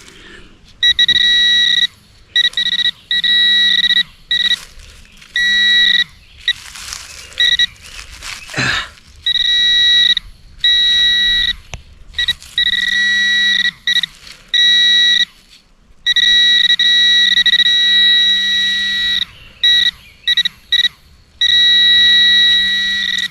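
A metal detector's buzzing alert tone, sounding on and off in bursts of half a second to a few seconds, with a few longer stretches: it is picking up metal in a freshly dug hole full of iron. A scrape of soil and a short thud come around the middle.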